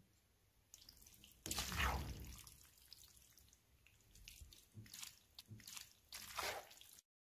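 Farfalle with melting mozzarella being stirred in a frying pan: faint soft stirring noises, the longest about a second and a half in, then several short strokes near the end.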